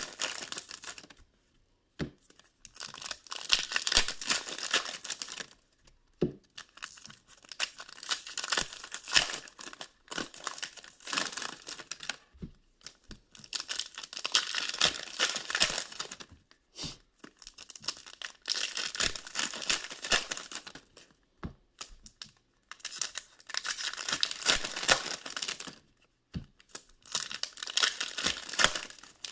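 Wrappers of 2019-20 Upper Deck SP Authentic hockey card packs being torn open one after another, tearing and crinkling in bursts of a few seconds with short pauses and small clicks between.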